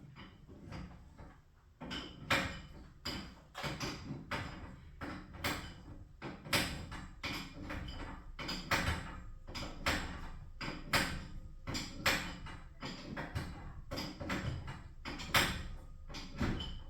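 Garage door hardware being worked: many sharp, irregular metallic clacks and knocks, about two a second, over a steady low rumble.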